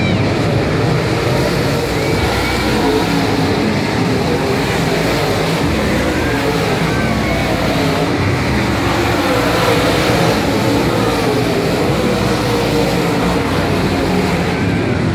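A field of dirt late model race cars' V8 engines running hard around a dirt oval, a loud, continuous engine drone. Engine notes rise and fall as the cars pass.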